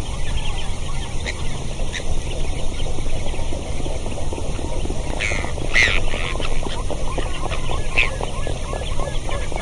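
Wind buffeting the microphone as a steady low rumble, with crackling rustle, and a few short high calls about five seconds in and again near eight seconds.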